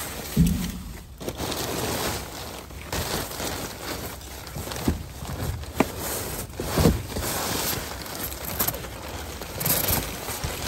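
Plastic bags and thin plastic sheeting rustling and crinkling as hands dig through trash in a dumpster, with a few knocks as items shift.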